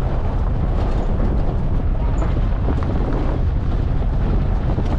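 Small pickup truck driving: a steady, loud low rumble of engine, road and wind noise.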